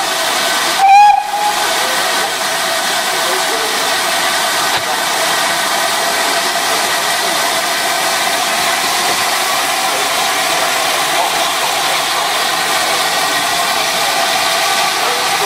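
A short, loud steam whistle toot about a second in, then a steady hiss of escaping steam from the standing GWR Saint class 4-6-0 steam locomotive No. 2999 'Lady of Legend'.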